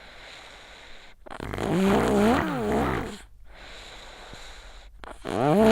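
A sick child snoring in sleep: two wavering, pitched snores about four seconds apart, the second starting near the end, with quieter airy breathing between them.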